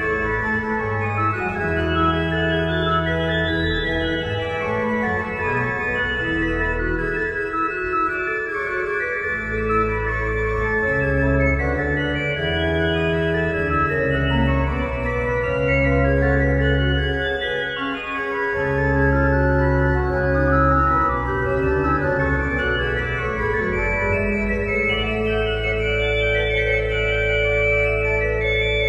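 Organ playing slow held chords that change every second or two over deep sustained bass notes.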